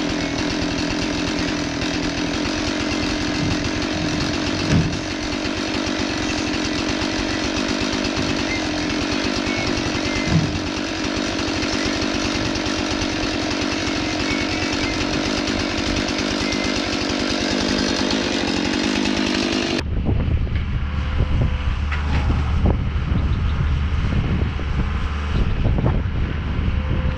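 Chainsaw running steadily at a constant pitch, sharpening wooden fence posts to a point, with a couple of brief knocks. About twenty seconds in it cuts off abruptly and gives way to a low engine rumble with wind on the microphone.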